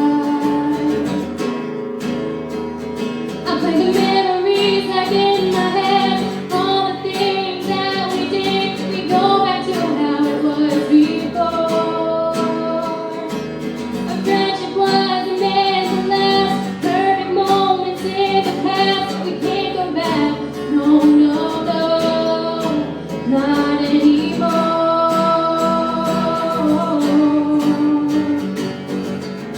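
Live song: a female voice singing a held, flowing melody over acoustic guitar accompaniment.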